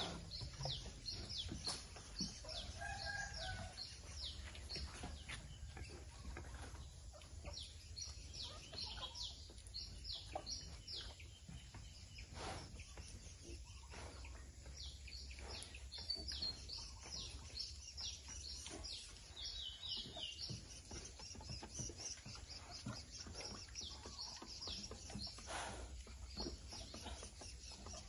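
Birds chirping: many short high calls in quick runs throughout, with a brief lower call about three seconds in, over a low steady rumble.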